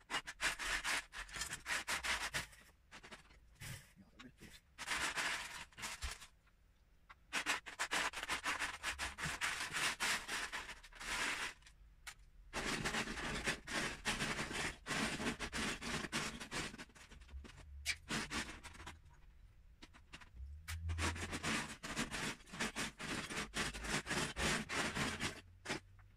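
Hands rummaging through loose Lego bricks in a plastic storage tub: plastic pieces clattering and scraping against each other in bouts of a few seconds, with short pauses between.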